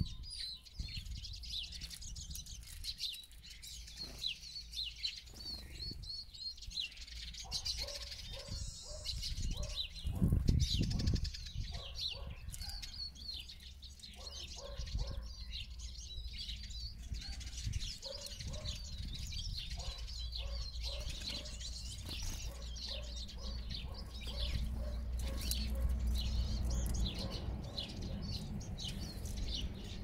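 Eurasian siskins twittering with rapid high chirps, with a brief louder flutter of wings about ten seconds in, over a steady low rumble.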